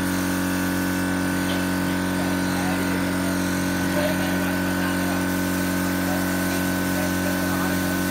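A motor or engine running steadily at constant speed, a continuous drone that holds one pitch without change.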